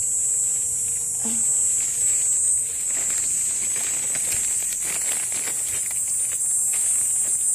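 Steady high-pitched drone of forest insects, with dry leaf litter crackling and rustling through the middle seconds as a wild mushroom is pulled up from the forest floor.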